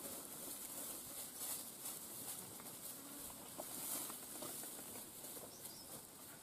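Faint rustling and soft patter of feet and dog paws moving through dry grass and rice stubble.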